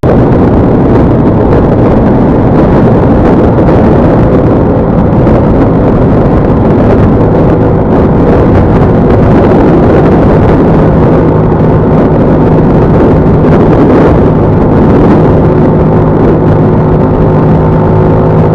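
Loud, steady noise of a vehicle travelling on a road, with engine hum and wind buffeting the microphone; a steady engine tone stands out more clearly in the second half.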